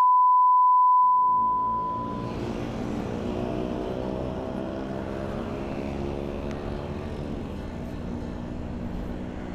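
A loud, steady high beep for about the first two seconds. Then a Yamaha RX-King's two-stroke single-cylinder engine fades in and runs steadily for the rest.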